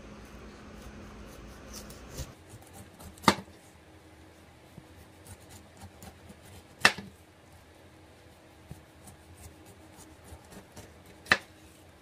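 Chef's knife cutting the rind off a whole pineapple: faint crunching and scraping as the blade goes down through the tough skin, with three sharp knocks, about three and a half seconds apart, as the blade strikes the cutting board at the end of each stroke.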